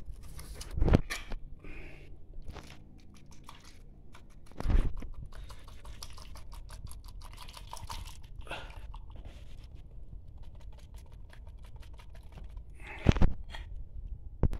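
Canned meat in sauce being shaken out of a tin can onto bread pieces in plastic bowls: wet squelching and crackling, with a few louder knocks of the tin, about a second in, near five seconds and near the end.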